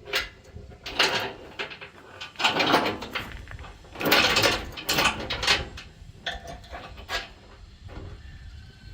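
Steel tie-down chains clanking and rattling as they are handled and reworked to secure a skid steer, in irregular clattering bursts with scraping in between.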